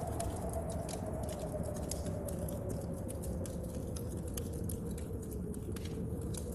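Layered storm-and-fire ambience: a low wind howl that slowly dips and then rises in pitch over a steady rumble, with dense, irregular sharp crackles and taps from a wood stove fire and rain on the window panes.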